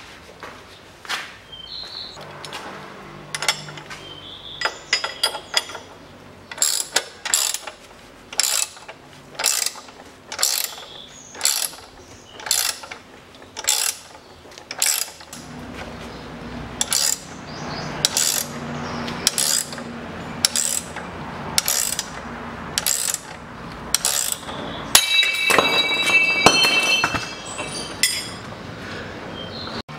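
Ratcheting wrench clicking in steady strokes, about one a second, as it turns the nut of a threaded-rod bushing puller pressing the rubber bush out of an engine mount. Near the end comes a brief high squeal with clicks.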